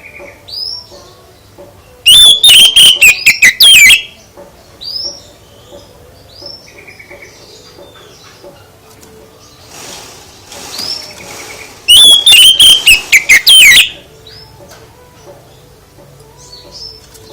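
A songbird singing in two loud bursts of rapid, high, sweeping notes, each about two seconds long, with softer chirps and short calls in between.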